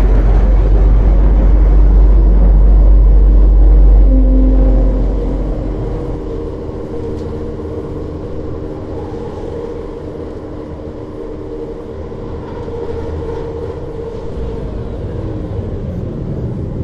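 Rocket launch rumble: a very loud, deep roar for about the first four seconds, then falling away to a quieter rumble with a steady drone of several tones underneath as the rocket climbs away.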